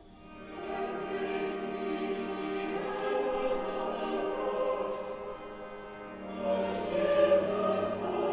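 A choir singing a slow sacred chant in held notes. A new phrase begins about half a second in, and the singing grows louder around six and a half seconds in.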